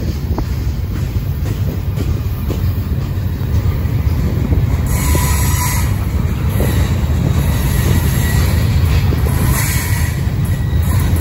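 Loaded freight train boxcars rolling slowly past on steel rails: a steady heavy rumble of wheels on track, with short stretches of higher wheel squeal about five seconds in and again near ten seconds.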